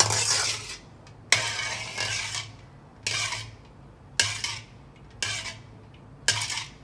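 A spoon stirring and scraping around a pot of hot palmyra fruit pulp with sugar, in regular strokes about once a second, to dissolve the sugar.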